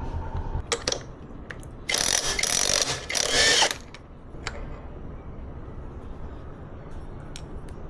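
Mechanic's hand tools clicking and clinking on motorcycle engine parts, with a loud rasping, ratchet-like burst lasting nearly two seconds about two seconds in, followed by more scattered clicks.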